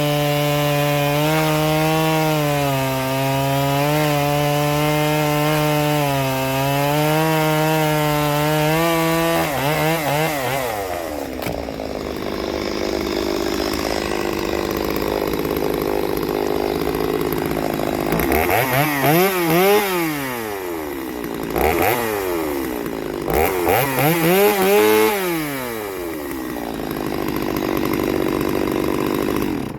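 Stihl 023C two-stroke chainsaw running at full revs, holding steady in the cut, then dropping back toward idle. It is blipped up and back down twice and cuts off at the end. Freshly tuned and running well in stock form.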